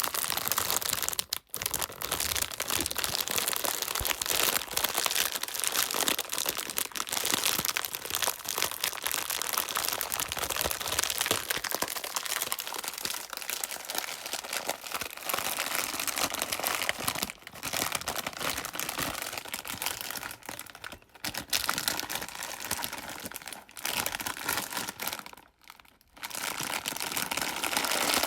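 Continuous crinkling and rustling of a large crinkly pack being handled and tilted, used in place of an ocean drum to make a wave-like wash of sound. It breaks off briefly about a second and a half in and again near the end.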